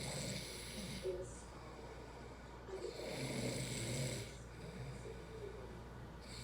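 A sleeping man with sleep apnea snoring loudly, with a rasping breath near the start and a longer one about three seconds in that carries a strong low buzz, on a steady rhythm of about one snore every three seconds.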